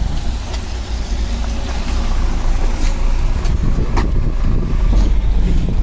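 Articulated city bus's engine running steadily while it waits at a stop. A sharp click about four seconds in as the door-open button is pressed.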